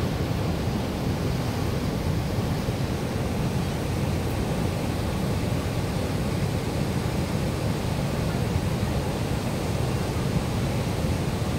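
Spillway in flood after heavy rain, its floodwater rushing and churning over the drop in one steady, unbroken rush of noise.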